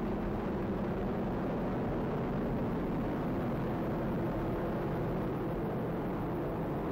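Atlas V 501 rocket's RD-180 first-stage engine firing during ascent: a steady, deep rumble of exhaust noise with no change in level.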